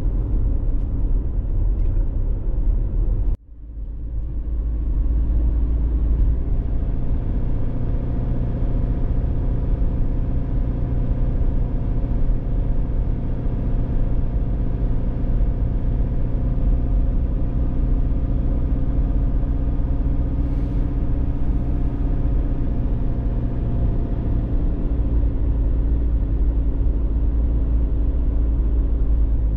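A car being driven, heard from inside the car: a steady low rumble of engine and road noise with a faint engine hum. The sound cuts out briefly about three seconds in and fades back up.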